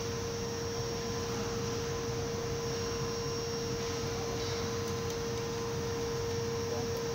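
A steady hum with one clear held tone, over an even background hiss, unchanged throughout.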